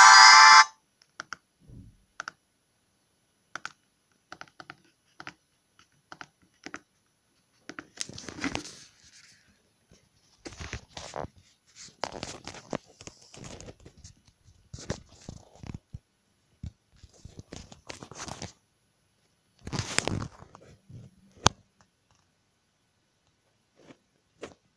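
A mobile phone's message-tone preview, cut off sharply about half a second in. Then scattered small clicks from the plastic keypad and brief rustling and scraping as the phone is handled and lifted.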